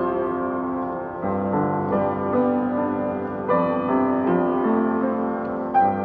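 Music played on piano: an unhurried run of single notes and chords, a new note or chord about every half second to a second.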